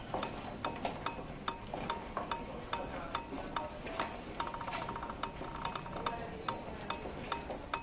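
A rhythmic percussion pattern of sharp clicks and ticks mixed with short repeated electronic beeps, with a fast rattling run of beeps about halfway through.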